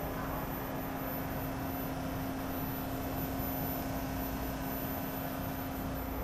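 Steady hum of a SEPTA Market-Frankford Line el train standing at the platform: one steady low tone over even background noise.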